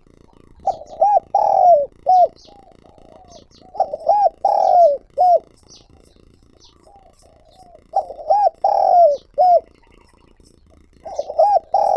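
Spotted dove cooing its multi-note call, each phrase a few short coos and a long one, repeated about every four seconds with softer coos between. Thin high chirps of small birds behind.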